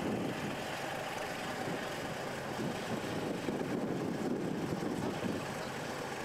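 Armoured military vehicle's engine running steadily: a rough, even drone with no clear pitch.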